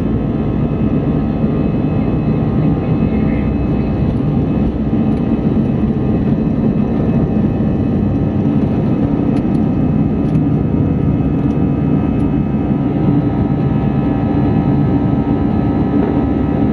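Inside the cabin of an Airbus A320-200 airliner: a steady, loud rush of engine and air noise with several steady humming tones over it, and a few light clicks or rattles around the middle.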